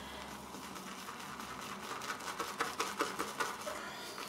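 Natural-bristle shaving brush whisking shaving soap into lather in a small bowl: soft, continuous wet swishing with small irregular clicks and squelches.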